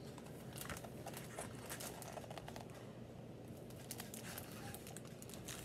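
Faint rustling and scattered small clicks of a paperback graphic novel's paper pages being handled and turned.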